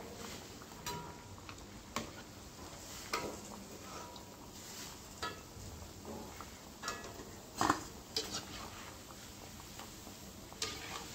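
Slotted metal spoon clinking and scraping against a metal kadhai as fried pieces are lifted out of the hot oil, a dozen or so scattered clinks with a short ring, the loudest about two-thirds of the way through. Faint sizzling of the frying oil underneath.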